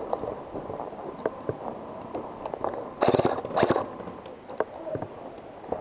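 Two short bursts of rapid airsoft gunfire about three seconds in, amid scattered clicks and knocks.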